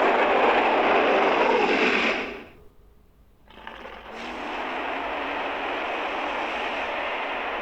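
Dinosaur roar sound effects for a Mapusaurus: a loud, noisy roar that cuts off about two seconds in, then after a short pause a second, longer and quieter roar that rises in about four seconds in and holds steady.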